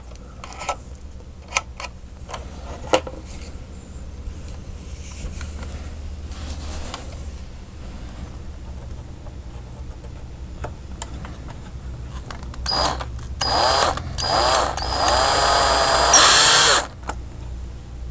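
Small hand-held power drill running in four short bursts near the end, the last one the longest, as it drills a centred hole into the metal axle stub of a die-cast model car. Light clicks and scraping come first, as plastic is scraped away from the stub.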